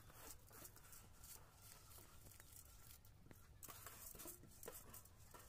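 Faint, irregular scraping and pattering of wet rice grains being swept by hand off a steel bowl into a steel pot of hot water.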